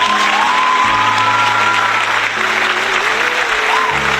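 Crowd applauding and cheering over a steady background music track.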